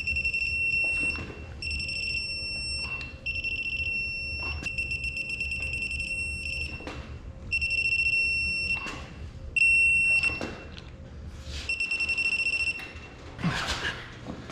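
Digital torque wrench sounding its target-torque alert, a high electronic beep, as each cylinder-head bolt is pulled up to 130. The beep comes in seven runs of about one to two seconds, with short clicks between them.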